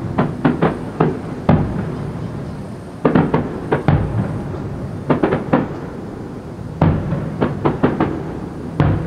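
Aerial firework shells bursting in quick clusters of sharp booms every second or two, over a continuous low rumble.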